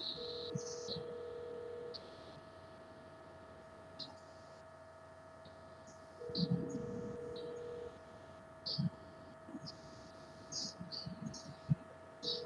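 A steady electrical hum, with a lower electronic tone that sounds for nearly two seconds three times, about six seconds apart. A few faint clicks and brief bits of hiss come through a video-call audio line.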